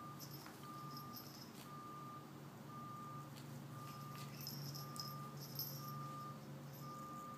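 Faint electronic beeping, one short steady beep about every second, over a low steady hum. Light rustles and clicks from the puppy rolling on the rug come and go.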